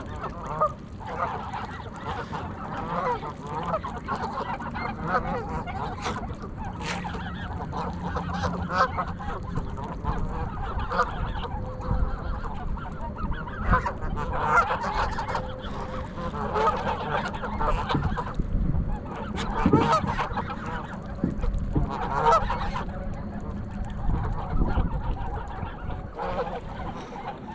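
A flock of Canada geese on the water honking and calling continually, many voices overlapping.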